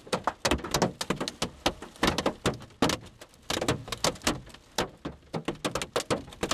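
Hailstones striking the car, heard from inside the cabin: a dense, irregular clatter of sharp knocks, several a second.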